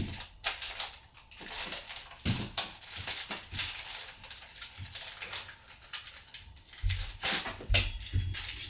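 Parchment paper crackling and rustling on a baking sheet as dough is pressed and shaped on it by hand: a steady run of small crinkles and clicks, with a few soft knocks near the end.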